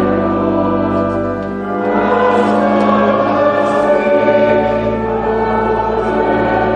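A choir singing long held chords with orchestral accompaniment: a hymn or anthem in classical choral style.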